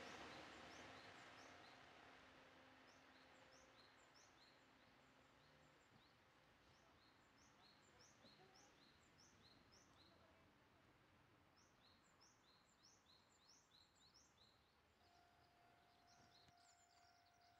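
Faint, repeated short bird chirps in quick clusters over near silence, while the hum of a receding electric commuter train fades away over the first few seconds. A faint steady hum of the next approaching train begins near the end.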